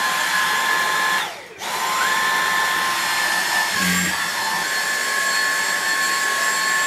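Dyson V6 cordless handstick vacuum running with the miniature turbo tool fitted: a loud, steady high whine with a rushing hiss. It is switched off about a second in and back on half a second later, and a brief low thump with a slight dip in pitch comes about four seconds in.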